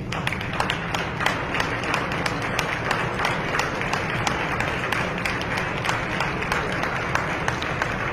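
Audience applauding and clapping, breaking out suddenly and holding steady, with many sharp individual claps standing out.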